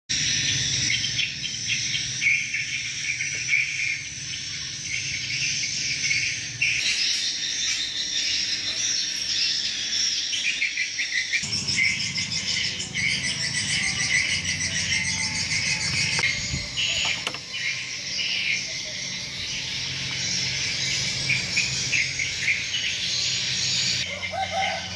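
Outdoor ambience of insects and birds: a dense, high-pitched, fast-pulsing chirring of insects with bird chirps over it. A low steady hum comes in abruptly about halfway through, and the background shifts again near the end.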